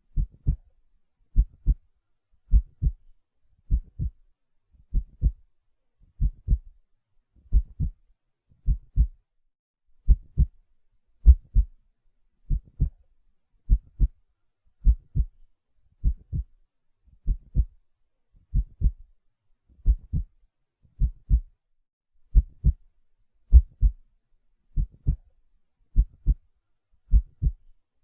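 A heartbeat beating steadily, each beat a low double thump (lub-dub), a little under one beat a second.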